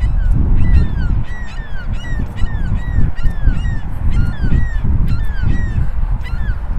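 Birds calling in a rapid series of short, downward-slurred calls, two or three a second, over a loud, uneven low rumble.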